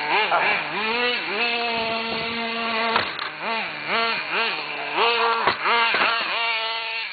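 Gas-powered RC car's small engine running at a high buzz, pitch rising and falling as the throttle is blipped, with a stretch of steady throttle in the first half.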